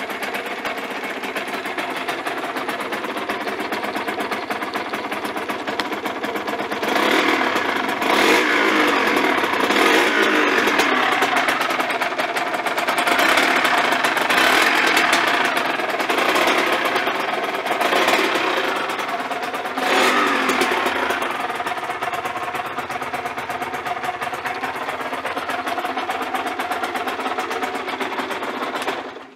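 Aprilia RS 125's single-cylinder two-stroke engine running on a newly fitted Dell'Orto PHBH 28 mm carburettor, idling and revved in several blips from about seven to twenty seconds in before settling back. It runs smoothly, with the intake a bit muffled by the refitted airbox.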